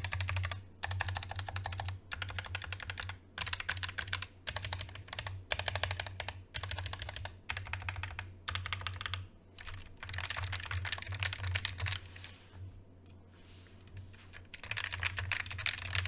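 Roccat Vulcan II Mini keyboard being typed on fast, in runs of rapid keystrokes broken by short pauses, with a longer lull about twelve seconds in.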